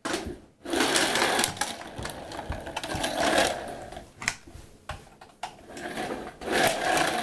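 Spin Master Monster Vision jumping toy monster truck running with a buzzing, whirring mechanical rattle, with several sharp clicks along the way.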